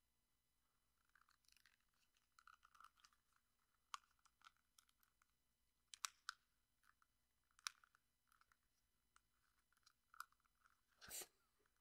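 Faint, scattered clicks and scratches of hands trying to strike a light at a candle, with one louder scratch about eleven seconds in.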